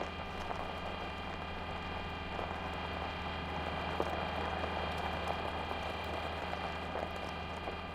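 Sound effects for a Mars rover rolling on its wheels: irregular crunching and crackling like gravel under the wheels, over a steady drone of several held tones.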